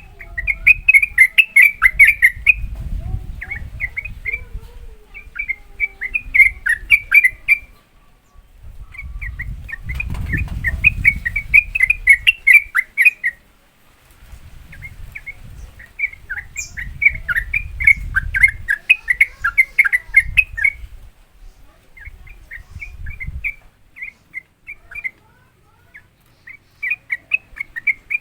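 Yellow-vented bulbul (trucukan) singing its fast 'ropel' song: rapid runs of bubbly, chattering notes in phrases of a few seconds, separated by short pauses.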